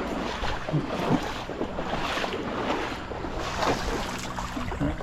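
River water splashing and sloshing, irregular and continuous.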